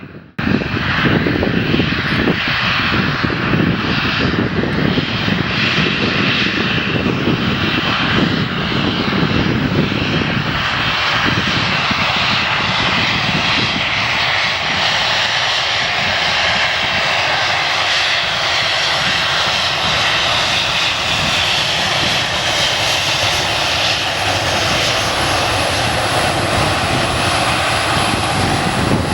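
Airliner jet engines running loud and continuous as the plane passes. A heavy low rumble in roughly the first ten seconds gives way to a higher rushing whine as the low end fades.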